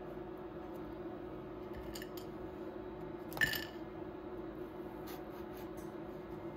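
Metal kitchen tongs with silicone tips clicking faintly while handling fried bananas on bamboo sticks, with one sharper clink about halfway through. A steady low hum sits underneath.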